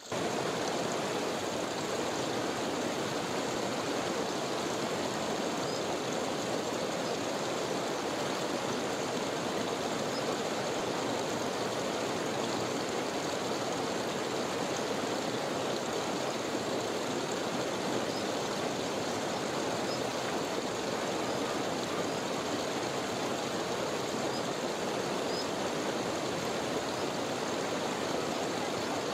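Glacier meltwater running steadily through an ice cave, a continuous rushing of water over rocks, with a few faint drips from the melting ice roof.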